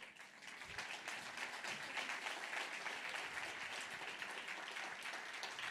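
Audience applauding, the clapping swelling in during the first second and then holding steady.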